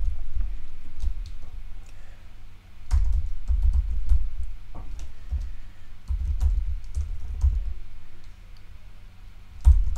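Typing on a computer keyboard: keys clicking in irregular bursts, with dull low thumps from the desk and a faint steady hum behind.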